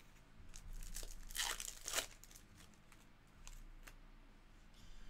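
Foil trading-card pack crinkling and being torn open, loudest about a second and a half in, followed by light clicks of cards being handled.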